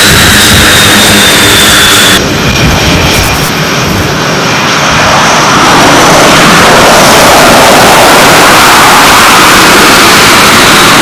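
Very loud jet aircraft engine roar on a carrier flight deck, with a high whine falling in pitch over the first two seconds. About two seconds in the sound changes abruptly, then the roar builds back up and holds.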